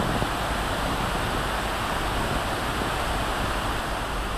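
Floodwater pouring through the open sluice gates of a river barrage: a steady rush of churning water with a low rumble beneath.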